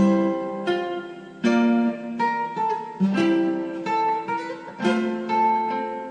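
Guitar music: plucked chords struck about once a second and left to ring out.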